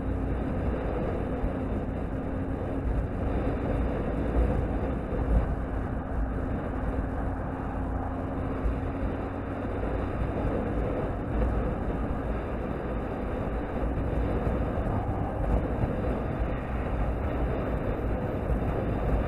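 Wind rushing over the microphone of a moving sport motorcycle, mixed with the steady drone of its engine at cruising speed. The engine drone is plainer in the first half and fades into the wind noise about halfway.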